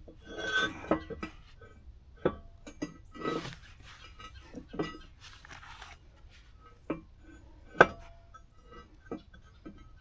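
Steel clinking and knocking as a freshly welded wood-splitter wedge piece is handled and set in place, with short scrapes and scattered light clanks and one sharp metal knock about eight seconds in.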